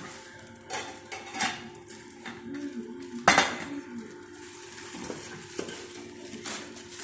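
Cookware being handled: pots and lids clinking and knocking against each other, with one loud clank about three seconds in.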